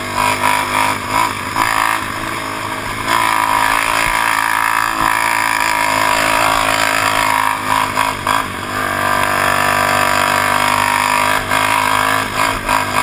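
ATV engine running hard under throttle at riding speed, heard close up from the quad itself, easing off briefly a few times before pulling again.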